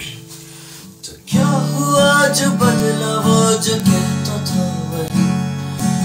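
Acoustic guitar: a chord rings and fades, then a little over a second in steady chord strumming begins.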